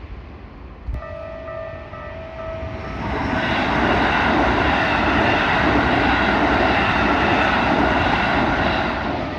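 Japanese level-crossing warning bell ringing its repeating electronic tone. About three seconds in, a train passes through the crossing with a loud, steady rolling rush that drowns the bell for about six seconds, then fades near the end.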